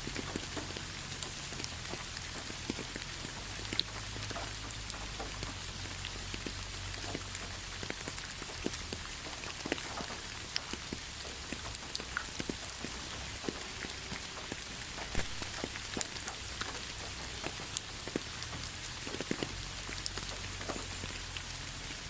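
Steady rain falling, an even hiss with many sharp drops ticking as they hit a surface, over a faint low hum.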